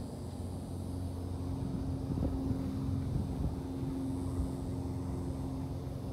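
Steady engine drone, a low hum holding one pitch throughout.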